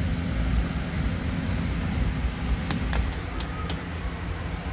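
Steady low rumble and hum of a running motor, with a few light clicks about three seconds in.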